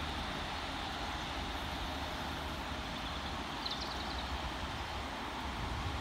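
Steady low rumble of a three-car diesel multiple unit pulling away into the distance.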